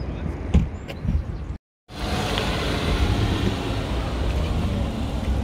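A few light knocks, then after a brief break in the sound, a car's engine and road noise running steadily as it drives.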